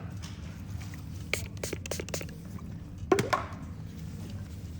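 Sharp clicks of nail nippers cutting a thick toenail: a quick run of snips about a second in, then a louder pair of snips about three seconds in, over a steady low hum.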